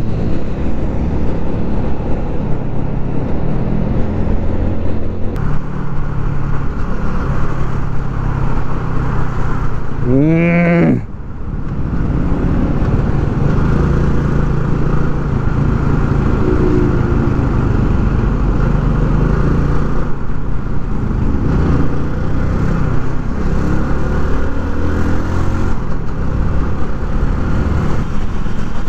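Small motorcycle engine running at road speed under a steady rush of wind noise, the engine note rising and falling with the throttle. About ten seconds in, a short tone bends up and down.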